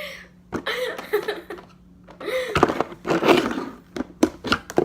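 Women's voices making sounds without clear words, with several sharp knocks near the end.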